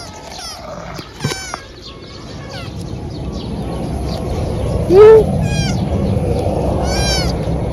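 A calico kitten meows once, short and loud, about five seconds in. Birds chirp in the background throughout, in high, repeated, downward-sweeping calls.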